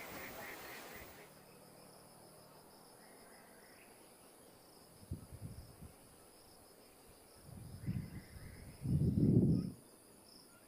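Insects chirping steadily in a high, pulsing tone. A few low rumbles cut in, the loudest about nine seconds in.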